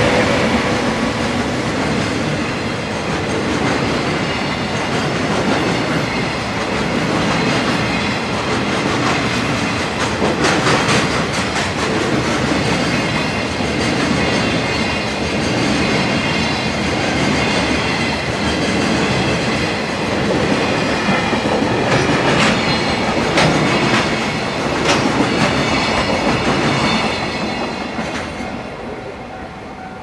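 Freight train of container wagons rolling past at speed, its wheels clattering over the rail joints with a steady rumble and scattered knocks. The sound dies away over the last few seconds as the end of the train passes.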